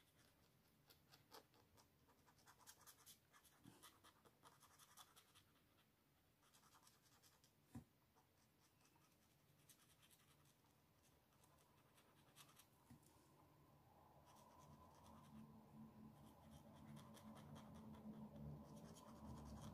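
Faint scratching of a felt brush-tip artist pen stroking across paper, in short clusters of strokes with pauses between. A faint low hum grows over the last few seconds.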